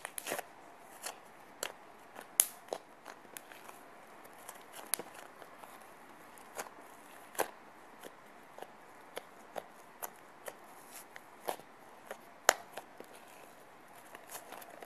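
Pink slime being kneaded and folded by hand, giving off irregular sharp clicks and pops as air pockets in it burst, roughly one a second, a few much louder than the rest.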